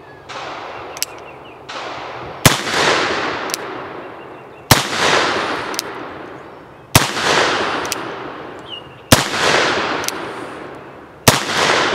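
A .44 caliber brass-framed cap-and-ball revolver, a Colt 1851 Navy replica loaded with black powder, firing five shots about two seconds apart. Each shot is followed by a long rolling echo, and fainter clicks come between the shots.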